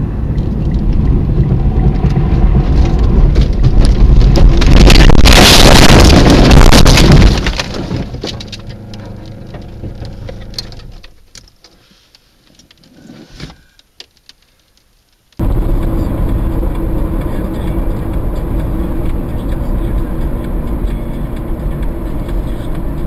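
A car leaving a snowy road into the roadside, heard from inside: a loud rush of snow and brush against the body that builds to a peak about five to seven seconds in, then dies away to near quiet. About fifteen seconds in, steady in-car road and engine noise cuts in abruptly.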